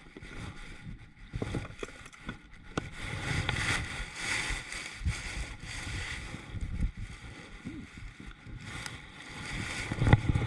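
Water sloshing around a fishing kayak, with irregular low thumps and a few sharp knocks on the hull and gear. The loudest knock comes near the end.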